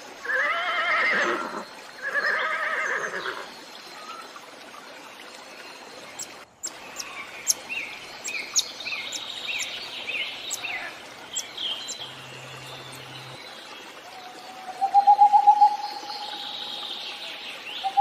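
A horse whinnying twice, then a run of short, high chirps and clicks, and a trilling call near the end.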